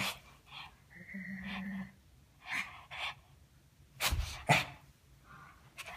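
Shih Tzu giving short, sharp, excited barks at scattered moments during zoomies, the loudest two close together about four seconds in.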